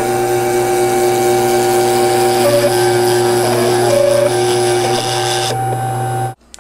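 Small CNC mill engraving a copper-clad circuit board with a fine V-shaped carving bit: a steady spindle hum under a stepper-motor whine that jumps between two pitches as the axes change moves. The sound cuts off suddenly near the end.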